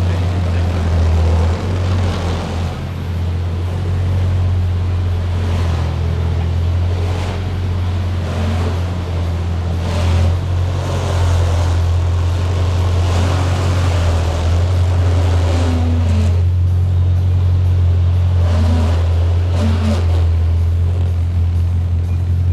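A car engine running steadily with a constant low drone.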